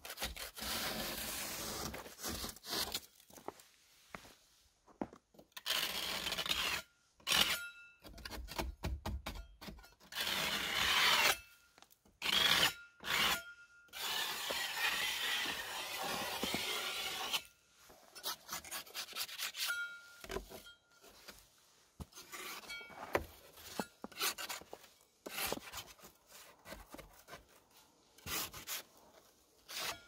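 Packed snow being scraped and swept off a wooden beam in repeated rubbing strokes. Some strokes run for a second or more; in the second half they turn shorter and quicker.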